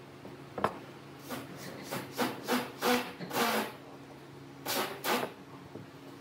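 Ballpoint pen scratching along the edge of a card template on rough-sawn pallet wood while tracing a curved outline: two runs of short, scratchy strokes with a pause between, after a single sharp click about half a second in.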